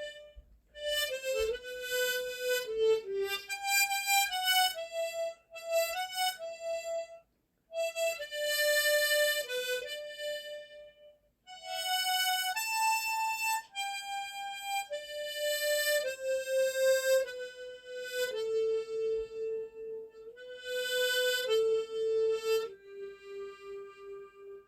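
Tremolo harmonica playing a slow melody phrase by phrase, closing on a long low held note that pulses and fades away near the end.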